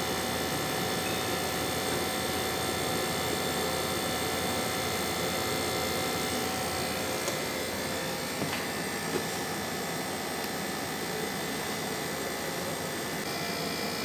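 Window-type air conditioner running on test, its compressor and fan motor giving a steady hum. The compressor is up to pressure and working again after its thermostat was cleaned and adjusted.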